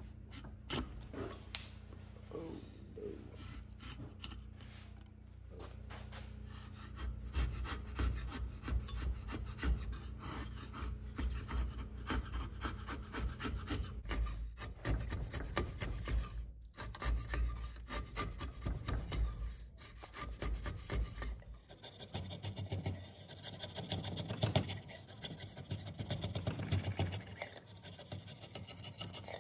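Drawknife shaving curls of wood off a wooden cane shaft, a rasping scrape with each stroke, repeated over and over.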